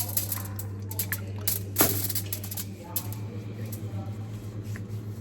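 Homemade glitter slime being kneaded and stretched by hand, making wet squishes and quick clicking pops, with one louder snap a little under two seconds in. A steady low hum runs underneath.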